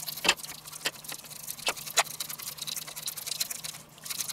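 Hands handling a raw pork loin in a stainless-steel roasting pan: soft rustling with several sharp clicks and taps of meat and fingers against the metal.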